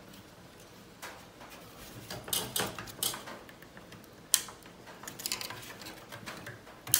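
Hard plastic clicking, creaking and scraping as a chrome trim strip is wiggled out of its pin clips in a VW Mk5 plastic grille. There is a sharp click about four seconds in and another near the end.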